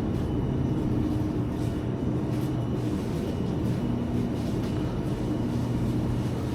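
Steady low mechanical hum of supermarket freezer cases, with a few faint light clicks.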